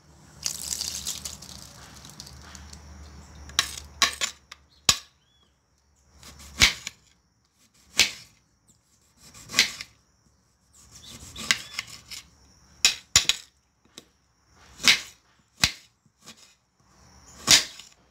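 Kitchen knife chopping food into cubes on a cutting board: separate sharp knocks at an uneven pace, a second or two apart, some in quick pairs, after a short rustle near the start.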